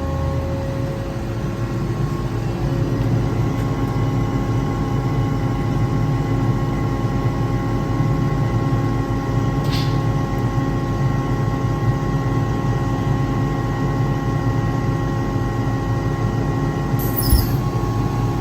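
Kaeser ASK 28 T 15 kW rotary screw air compressor running under load, a steady hum with several constant tones, as it pumps an air receiver up towards 8 bar. Near the end comes a short thump and hiss, after which one of its tones drops away.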